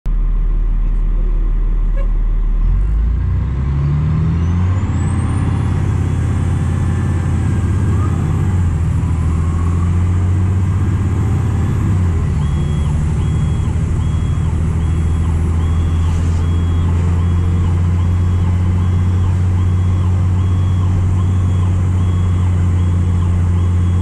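Fire truck's diesel engine heard from inside the cab, pulling away and rising in pitch through several gear changes in the first half, then running steadily at cruising speed.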